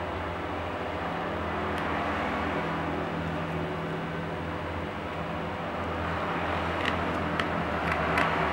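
Steady low hum and rumble of background noise, with a few small sharp clicks near the end from laptop parts being handled.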